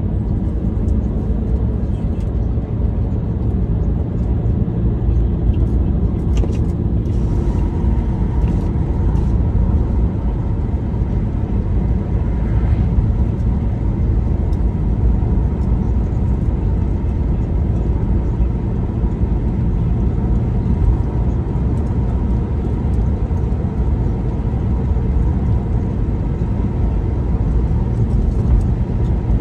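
Steady road and engine noise of a car driving.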